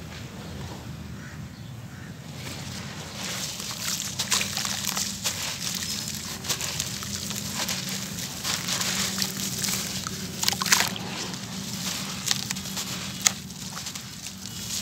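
Hands squeezing and crumbling a waterlogged gritty cement slab in a basin of water: wet gritty crunching with sloshing water, much busier from about three seconds in, with a couple of sharper cracks in the second half.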